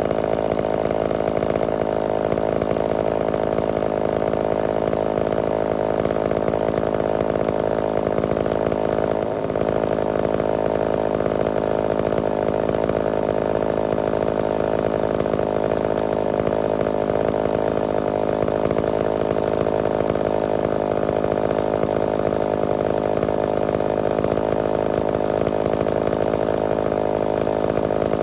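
Homelite Super XL-923 82cc two-stroke chainsaw engine running at a steady, unchanging speed, with a brief dip about nine seconds in.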